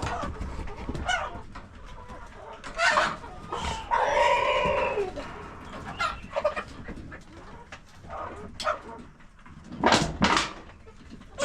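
Chickens clucking and squawking in short scattered calls, with one longer drawn-out call about four seconds in.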